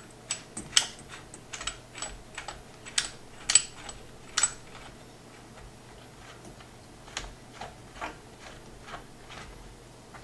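Irregular small clicks and taps of a CPU cooler's mounting bracket, screws and hard plastic risers being fitted by hand onto a motherboard's AM4 backplate. The clicks come thick for the first four seconds or so, then sparser.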